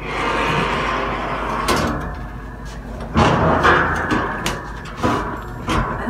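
Folding wooden attic ladder pulled down from its ceiling hatch by a rope. A steady scraping as the hatch swings open, then a run of knocks and clatters as the wooden sections unfold, loudest about three seconds in.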